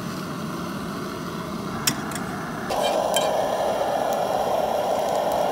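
Backpacking stove burning steadily under a pot of boiling pasta, a continuous hiss, with a single metal clink about two seconds in. Partway through, the hiss becomes louder and higher.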